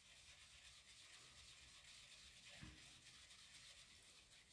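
Near silence: faint room hiss, with one soft tick about two and a half seconds in.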